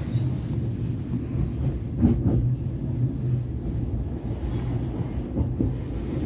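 Class 707 electric multiple unit heard from inside the carriage while running: a steady low rumble, with a single sharper knock about two seconds in.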